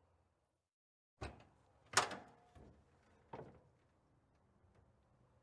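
1969 Chevrolet Impala trunk lid and latch working: a short knock about a second in, then a sharp metal clunk with a brief ring, and two lighter knocks over the next second and a half.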